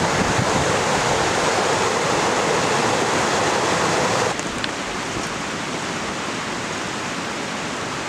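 Rushing water of a mountain creek tumbling over boulders in small cascades, a steady, loud rush. A little over four seconds in, it drops suddenly to a quieter, steady rush of water.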